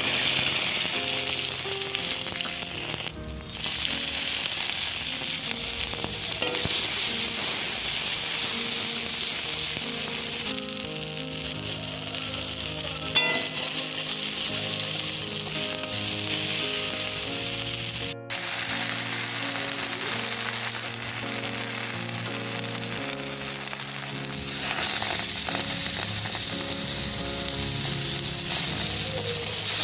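Spices, dried red chillies and chopped aromatics sizzling in hot oil in a metal pan while a flat spatula stirs and scrapes them. Soft background music plays underneath. The sizzle drops a little quieter about ten seconds in and comes back louder near the end.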